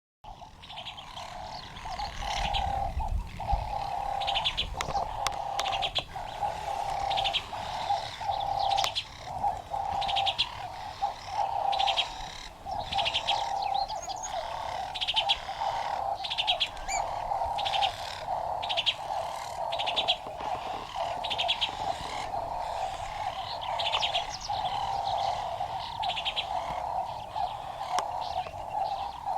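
A chorus of birds calling: a steady lower-pitched chatter runs throughout, with short high trilled chirps repeating about once a second over it.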